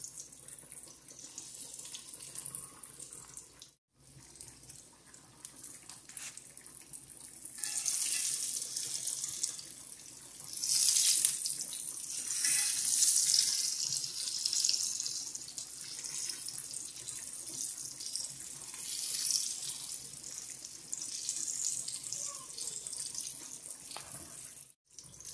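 Battered squirrel pieces deep-frying in hot oil in a cast-iron skillet: a steady hissing sizzle that grows louder about eight seconds in and is loudest around eleven to fourteen seconds, as the pieces are turned over with a fork.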